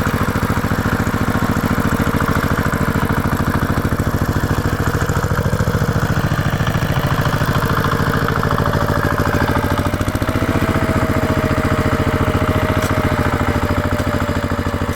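Tractor engine idling steadily with a rapid, even chug. About halfway through a thin whine comes in over it and holds.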